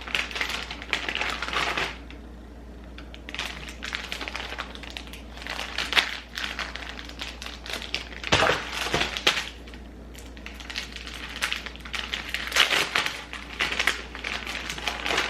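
Irregular crinkling, rustling and light clatter of things being handled, in uneven bursts with a short lull about two seconds in.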